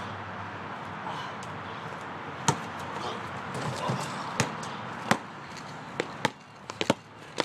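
Basketball bouncing: a few single, well-spaced thuds, then several quicker bounces in the last second or two.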